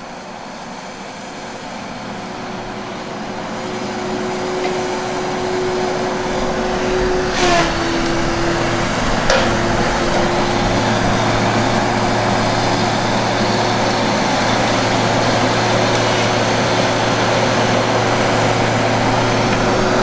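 Tigercat rubber-tired feller buncher's engine and felling head running under load as it cuts its way through the pines, with a steady whine that gets louder as the machine works closer. Two sharp cracks about seven and a half and nine seconds in.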